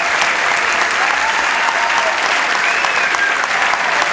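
A large audience applauding: dense, steady clapping, with a few high calls rising over it.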